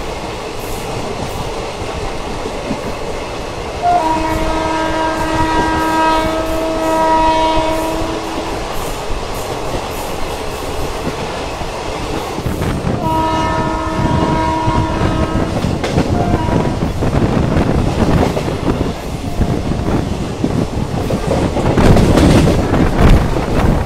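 Indian Railways train horn sounding two long steady blasts: one of about four seconds starting about four seconds in, and one of about two and a half seconds near the middle. Under them runs the continuous rumble and wheel clatter of a moving passenger train, heard from an open coach doorway, which grows louder near the end.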